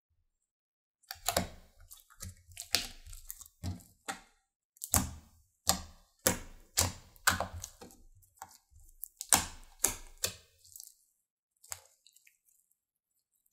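Orange slime being squished, poked and stretched by hand on a wooden board, making a quick series of sharp, sticky clicks and pops as air pockets burst. The clicks start about a second in and die away a couple of seconds before the end.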